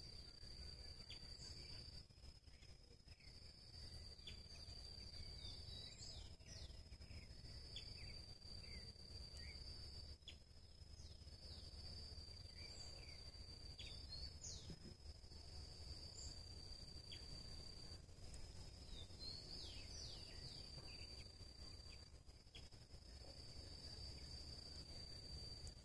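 Faint natural ambience: an insect's steady, high-pitched trill with a few brief pauses, over which many short, downward-sliding bird chirps come and go, with a low background rumble.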